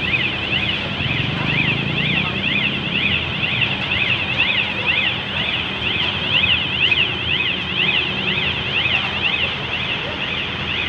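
Electronic warning alarm on the girder-handling machinery, sweeping rapidly up and down in pitch and repeating without a break, over a low steady machinery drone.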